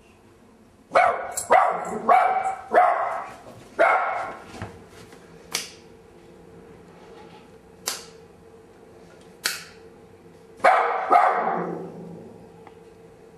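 A small dog barking: a run of about five rapid barks about a second in, then two more barks later, the last trailing off lower. Three short, sharp clicks fall in the gap between the barking.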